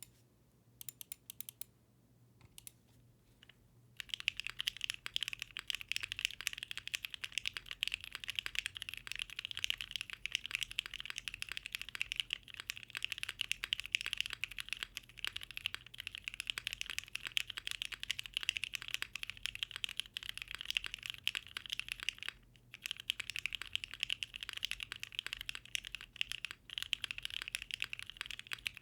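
Typing on a Bakeneko mechanical keyboard with lubed NovelKeys Cream linear switches, an aluminium plate and ABS keycaps. A few scattered keystrokes, then fast, continuous typing from about four seconds in, with one short pause about three-quarters of the way through.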